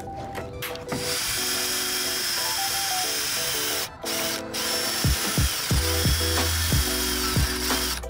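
Cordless drill driving a self-drilling tek screw through a red steel secondary roof frame. It runs for about three seconds, stops briefly about four seconds in, then runs again. Background music plays throughout.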